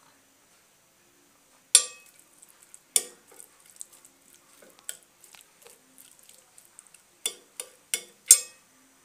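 A metal spoon clinking and scraping against a plate while stirring scrambled eggs and sauce, with sharp clinks now and then and a quick run of four clinks near the end.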